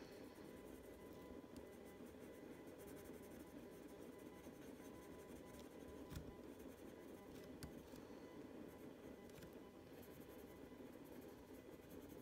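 Faint scratching of a Prismacolor Premier coloured pencil (mulberry) shading over paper, under a steady low hum.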